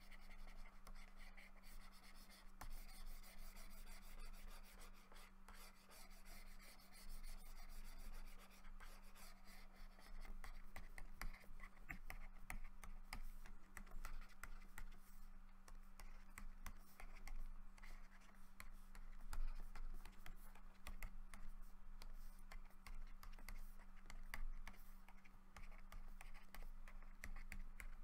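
Pen stylus scratching and tapping on a graphics tablet in many short strokes, over a steady low hum.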